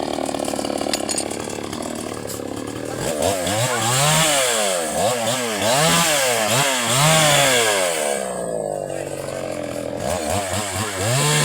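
Small engine of a grass cutter set up as a chainsaw, running steadily and then revved up and down repeatedly, about once a second. It settles briefly and is revved again near the end.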